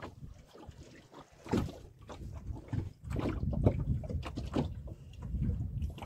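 Wind buffeting the microphone and water lapping at a small open boat at sea, a low rumble that grows louder about halfway through, with scattered light knocks and clicks.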